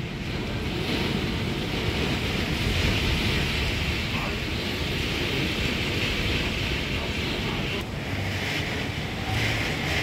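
Heavy storm: torrential rain pouring and strong wind gusting, with the wind buffeting the microphone. A steady rushing noise with a low rumble, easing briefly near the end.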